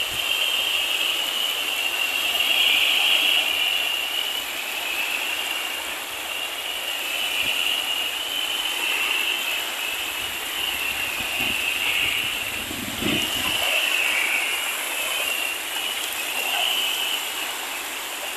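Small sea waves washing in and out on a flat sandy shore, a hiss that swells and fades every few seconds. A steady high-pitched whine, wavering in loudness, runs along underneath.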